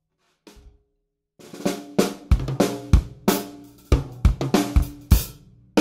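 Drum kit with Evans drumheads played in a groove that starts about a second and a half in: kick drum, snare and hi-hat, with the drums ringing briefly after the hits.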